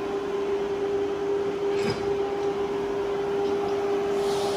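Air-cooling fans of a 1500 W Lightweld handheld laser welder running: a steady whir with a constant hum.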